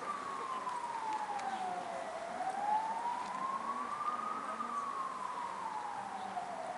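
Siren in a slow wail, one tone rising and falling, each sweep up or down taking about two seconds.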